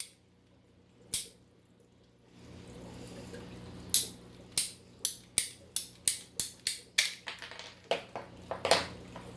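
Ratcheting PVC pipe cutter clicking about twice a second as its handle is squeezed to cut through plastic pipe, over a steady low hum.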